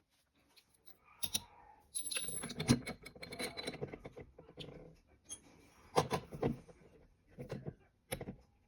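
Rice-popping machine being worked, with irregular metallic clattering and knocks: a dense rattling stretch about two seconds in, then a few separate sharp knocks.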